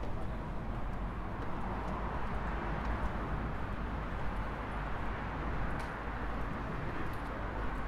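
Steady hum of road traffic, the even wash of passing cars, swelling slightly about two seconds in.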